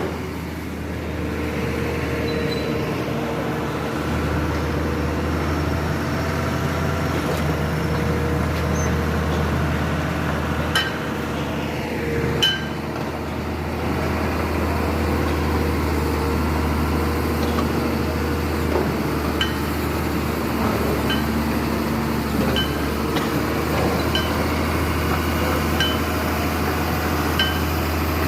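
Komatsu excavator's diesel engine running steadily with a low hum. Sharp metallic clinks cut through it, two near the middle, then a regular tick about every second and a half toward the end.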